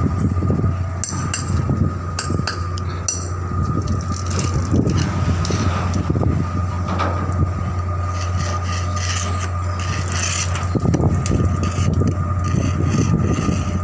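Irregular scraping and rubbing as dirt is cleaned off a steel wheel loader bucket, over a steady low machinery drone and a thin steady whine.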